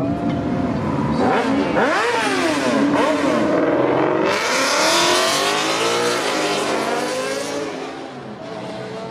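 A high-performance car engine blipped twice with quick rises and falls in pitch, then revving hard as the car accelerates away, fading near the end.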